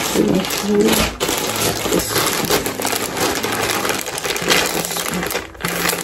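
Clear plastic packaging bag crinkling as it is handled and opened.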